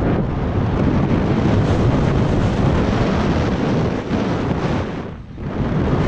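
Wind buffeting a GoPro Hero 5's microphone while a mountain bike rides fast down a dirt trail, with the tyres rumbling over the ground. The noise drops briefly about five seconds in.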